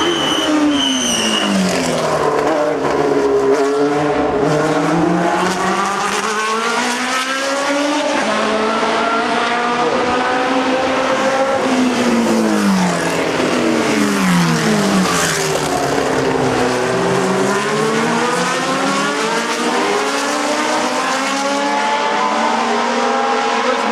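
Historic Formula 1 race cars' engines running at high revs. Their pitch falls and climbs again several times as the cars brake, change gear and accelerate, with more than one engine heard at once at times.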